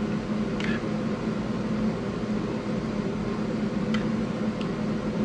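Steady hum of a running motor, with a few light clicks of a spoon against a metal pot as sauce is scooped out.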